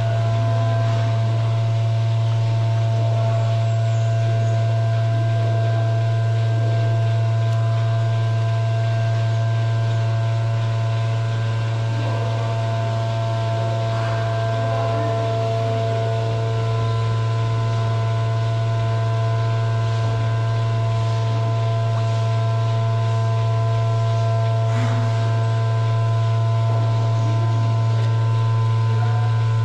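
A steady low-pitched hum with several fainter steady higher tones above it, unchanging throughout, with a few faint brief handling sounds.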